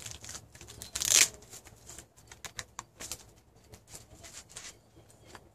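Handling noise from a knife sheath: a run of small clicks and rustles, with one louder scraping rustle about a second in.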